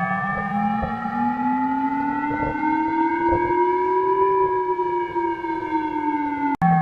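Civil-defense-style siren wailing as part of an emergency alert, its pitch rising slowly for about four seconds and then falling. It breaks off for an instant near the end and comes back at a lower pitch.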